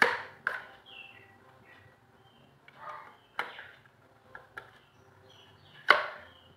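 Sharp knocks and clicks of hard parts being handled: two at the start, one about midway and the loudest near the end.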